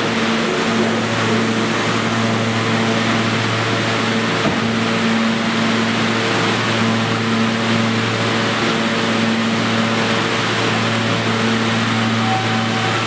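An R46 subway train stands at the platform with its doors open, giving off a steady electrical and ventilation hum with a low drone.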